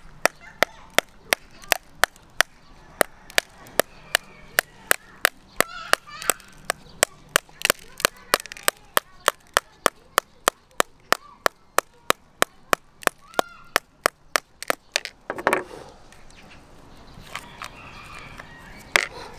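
Small metal-tipped hammer tapping an ostrich eggshell in a steady rhythm of about three sharp taps a second, cracking the thick shell. The tapping stops about three-quarters of the way through, followed by a couple of duller knocks as the cracked shell is handled.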